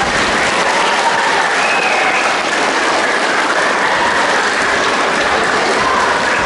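Audience applauding steadily, the dense clapping of many hands.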